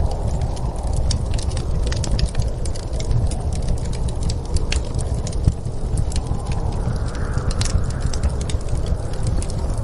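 Wood fire crackling in a fireplace, with sharp pops scattered irregularly over a steady low rumble of storm wind.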